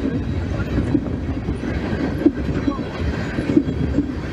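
Freight train cars rolling past with a steady low rumble and repeated clicks of wheels over rail joints, with a faint wheel squeal now and then.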